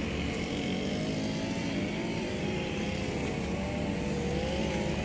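A motor running steadily, its whine wavering slightly in pitch over a low rumble.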